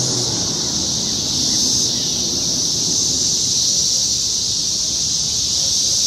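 Chorus of periodical cicadas, many males singing at once in a steady, loud, high-pitched whine: their mating call. Low wind rumble on the microphone underneath.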